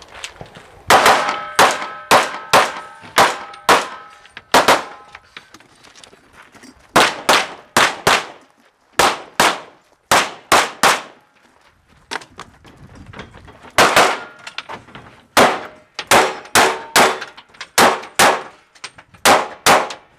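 Rapid gunfire from a shooter running a practical-shooting stage: about three dozen shots in fast strings of several shots each, with short pauses between strings. Steel targets ring with a metallic clang after some of the hits.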